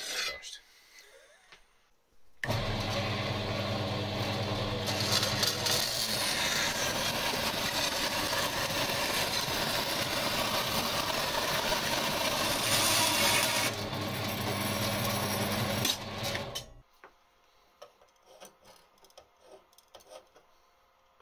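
A short metallic clack right at the start from a Clarke hand-lever bench shear cutting steel strip. About two seconds in, a metal-cutting bandsaw starts abruptly and runs with a steady hum; a couple of seconds later its blade bites into a flat steel strip and a loud cutting noise rides over the hum for about ten seconds. The saw stops suddenly, leaving only light clicks of tools being handled.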